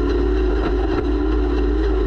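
Off-road race vehicle's engine running at a steady, nearly constant pitch, heard through its onboard camera, with a strong deep rumble beneath it.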